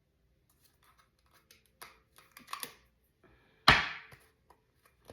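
Tarot cards being handled: a run of small clicks and rustles, then one loud sharp slap about two-thirds of the way through that fades quickly.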